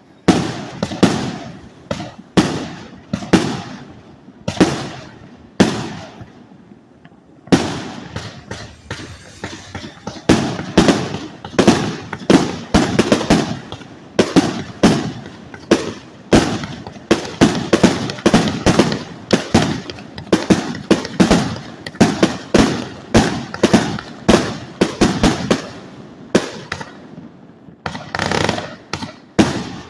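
A 450-shot consumer fireworks display board firing shot after shot, each a sharp report. The shots come one or two a second at first, then after a brief gap about seven seconds in they come faster, with a short lull near the end before a few more.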